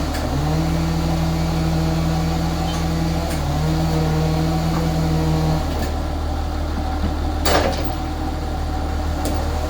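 Engine-driven machinery running steadily. Its hum dips in pitch briefly twice and fades out a little past halfway. There is one sharp knock about seven and a half seconds in.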